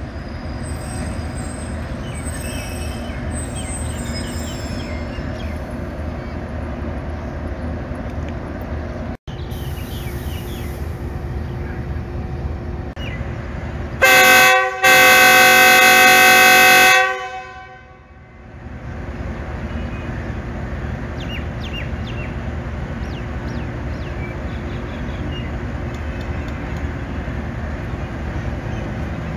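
Diesel-electric locomotive running at low speed with a steady rumble, sounding its horn twice about halfway through: a short toot, then a longer blast of about two seconds.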